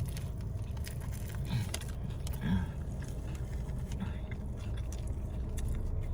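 A person chewing a meatball sub with small wet mouth clicks, over a steady low rumble.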